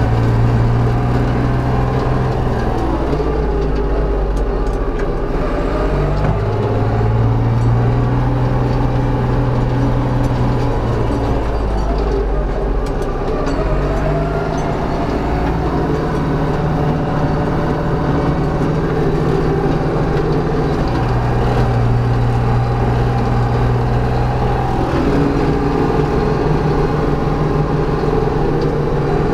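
Ursus 3502 tractor's diesel engine running under load while driving a mower over pruned branches. The engine note drops and rises several times as the load changes.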